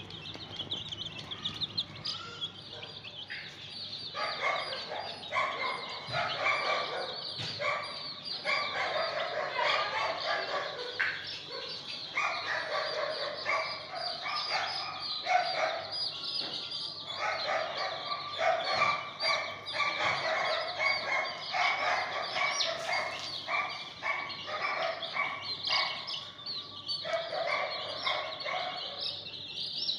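Dozens of domestic chicks peeping, high and shrill, without a break. From about four seconds in, an adult hen gives lower, louder clucking calls in short bursts over and over, stopping shortly before the end.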